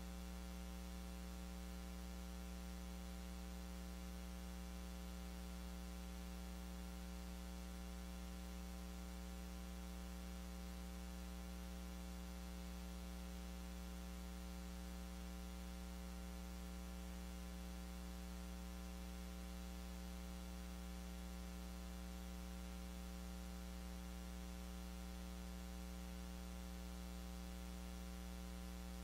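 Steady electrical mains hum: a low hum with a buzzier tone above it over a faint hiss, unchanging throughout. No voice comes through, so only the recording line's hum is heard.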